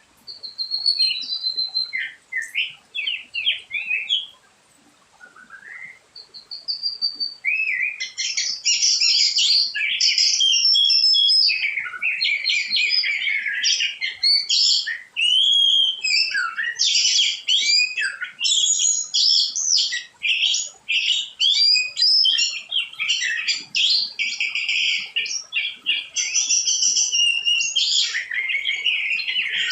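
Small songbirds chirping and twittering in quick, high calls, sparse at first with a short lull about five seconds in, then several birds chirping together almost without pause.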